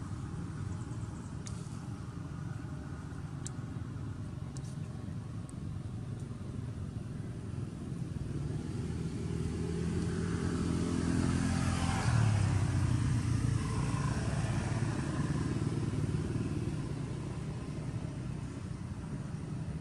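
A motor vehicle's engine running over a steady low rumble, growing louder to a peak a little past the middle as it passes, then fading.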